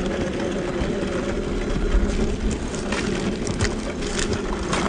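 Electric motor and gear drivetrain of an SCX10 II clone RC rock crawler whining steadily as it crawls. From about three seconds in, gravel crunches and clicks under its tyres.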